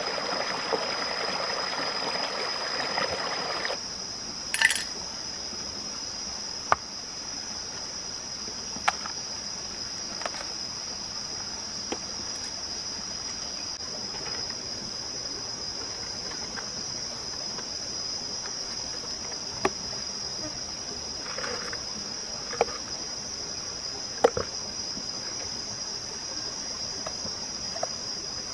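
Shallow stream water running over rocks for the first few seconds, cutting off suddenly; after that a steady, high-pitched insect chorus, broken by scattered sharp clicks and taps.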